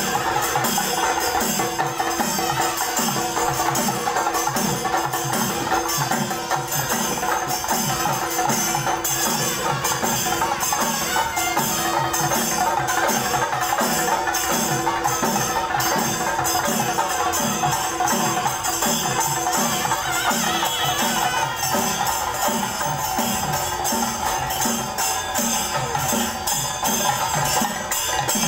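Loud festive music with a steady, evenly repeating drum beat and held tones above it.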